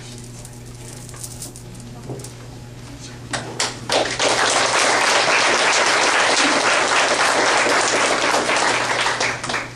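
Audience applauding: it starts about three and a half seconds in, holds steady, and dies away just before the end.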